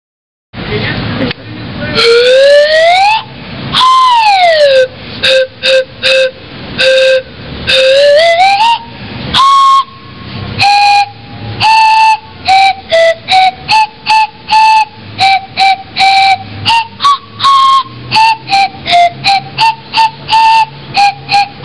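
Homemade slide whistle of PVC pipe with a dowel-and-styrofoam plunger, blown loudly. It slides up in pitch and back down, then plays a quick string of short separate notes that step between a few pitches as the plunger moves.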